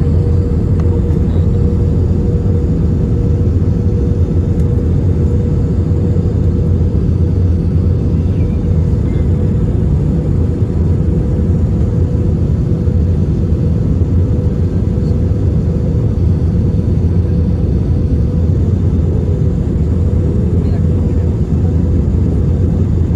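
Airbus A320 cabin noise: the engines and airflow as a steady, loud low rumble with a constant hum, unchanging throughout.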